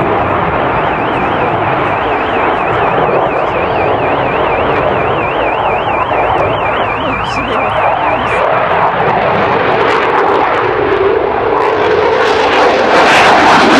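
Eurofighter Typhoon's twin EJ200 turbofans, a loud steady jet roar as it flies its display, growing louder about twelve seconds in as it passes close. For the first eight seconds or so a high warbling alarm tone sounds under the roar.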